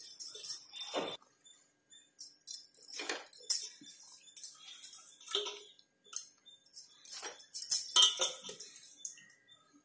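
Raw goat head meat pieces being put by hand into an aluminium pressure cooker of fried masala paste: a run of separate clinks and rattles, with short pauses between handfuls.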